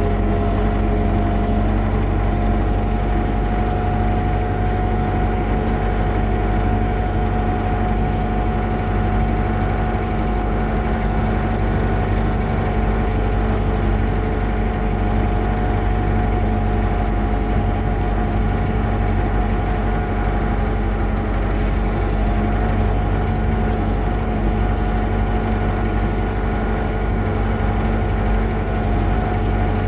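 A machine running steadily at constant speed, a continuous engine or motor hum with a strong low drone and a steady whine above it.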